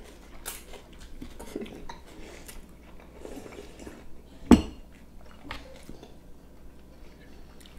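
Cutlery and dishes clinking at a meal, with quiet chewing and one sharp knock about four and a half seconds in, as of something set down hard on the table.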